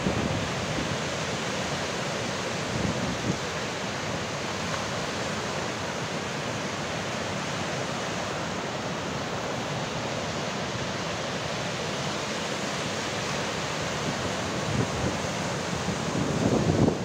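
Rough sea surf breaking on the shore, a steady rushing noise, with wind buffeting the microphone at the start and again near the end.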